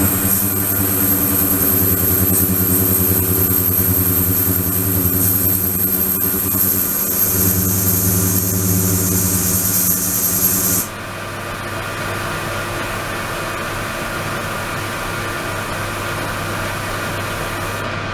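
Steady hum of ultrasonic tank equipment running, with a liquid-circulation pump and ultrasonic oscillators; it has a low hum with overtones and a thin high-pitched whine. About 11 seconds in, the whine and part of the hum cut off suddenly, leaving a quieter, duller running sound.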